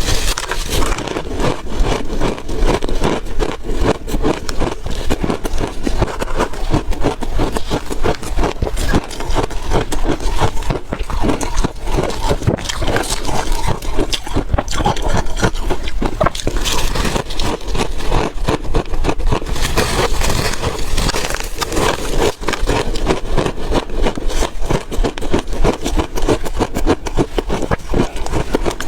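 Refrozen ice being bitten and chewed close to the microphone: a dense, unbroken run of crunches and crackles.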